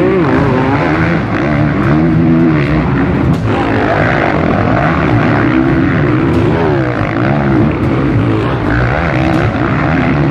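Several motocross bike engines revving hard as a line of bikes takes a rutted dirt corner. The engines overlap, each pitch rising and falling as the riders roll off and get back on the throttle.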